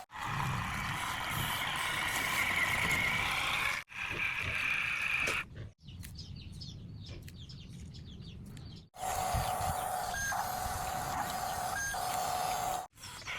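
Small electric motors of RC toy construction vehicles whining steadily, in several short clips joined by abrupt cuts, with a quieter stretch in the middle.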